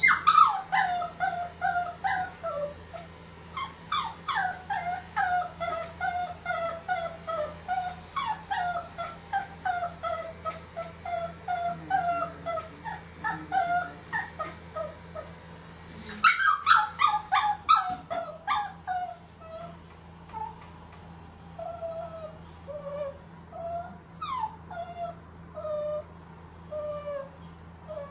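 Shih Tzu puppy whimpering in a long string of short, falling, high cries. A louder burst of cries comes a little past halfway, and the cries grow sparser and quieter toward the end.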